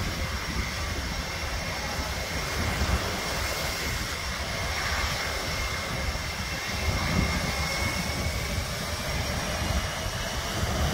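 Twin-engine jet airliner's engines running behind the runway-end fence, a steady rush of jet blast with a faint thin whine and a heavy low rumble buffeting the microphone. A faint rising whine comes in near the end.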